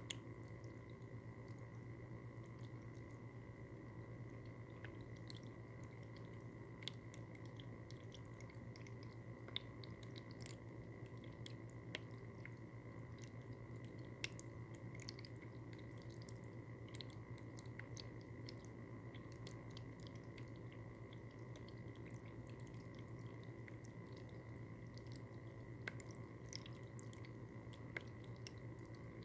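Cat water fountain running: its small pump hums steadily while water trickles and drips in a stream of small irregular ticks and splashes, with a handful of louder drips standing out.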